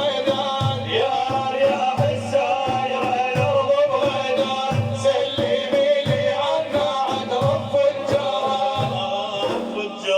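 Religious praise music: a steady low drum beat with regular strong strokes under a held melodic line.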